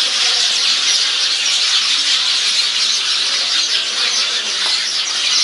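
Dense, unbroken chatter of a large flock of birds in the foliage: countless short chirps and squeaks overlapping into one loud, steady din.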